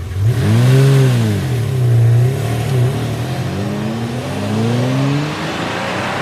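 Car engine revving: the pitch swings up and down a few times, then climbs in one long rising rev that fades out near the end.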